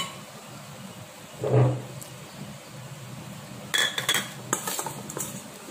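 A metal spoon stirring marinated paneer cubes in a stainless steel bowl, with a quick run of clinks against the bowl starting about four seconds in. A brief voice sound comes about one and a half seconds in.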